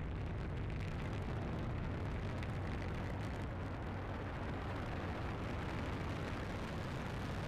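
SpaceX Falcon 9 rocket's first-stage engines during ascent: a deep, steady rumble with a light crackle in the first few seconds.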